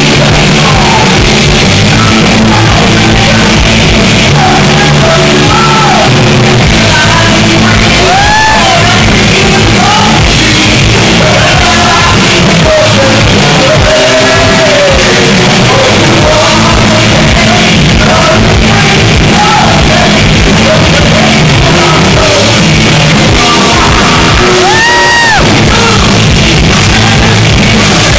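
Live rock band playing loud, with electric guitars through Marshall amplifiers and shouted vocals.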